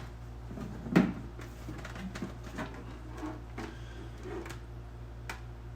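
Faint handling noises from a replica helmet being moved and turned: scattered light taps and clicks, one sharper knock about a second in, over a steady low hum.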